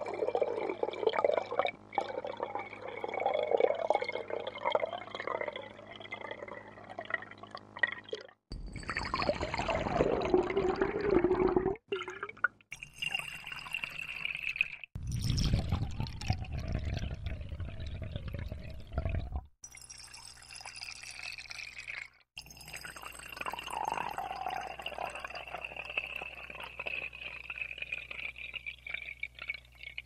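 Water pouring into a glass, in a run of about six separate pours, each a few seconds long and cut off sharply before the next begins.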